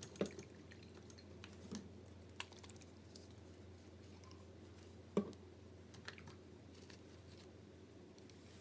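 A few scattered light taps and clicks of painting materials being handled and set down on the work surface, the sharpest about five seconds in, over a faint steady hum.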